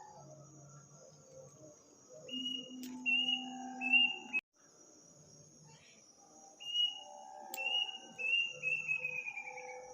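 A night bird giving two bouts of short, clear whistled notes. The second bout ends in a quickening run of notes that falls in pitch. Insects chirr steadily behind it.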